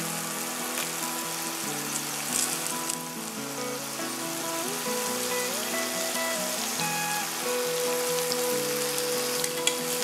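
Background music of held notes over a steady sizzle of garlic, chilli and sauce frying in a nonstick wok, with spring-onion stems being stirred in.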